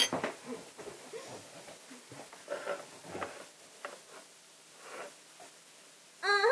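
Faint rustling and handling of a paper napkin at a cake plate. A girl's voice starts singing just before the end.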